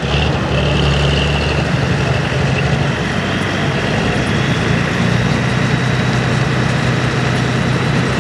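Diesel pulling tractor's engine running at a steady idle, a little louder for the first second or two before settling.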